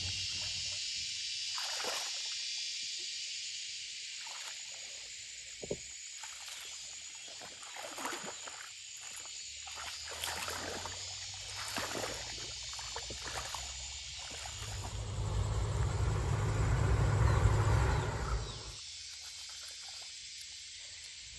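Shallow muddy water sloshing and splashing as a person wades and gropes in it with bare hands for fish, in short irregular splashes over a steady high hiss of outdoor background. A louder low rumble runs for about three seconds near the end.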